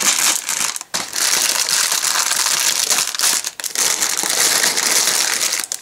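Sealed plastic bags full of Lego pieces crinkling steadily as they are handled and pulled out of the box, with two brief pauses.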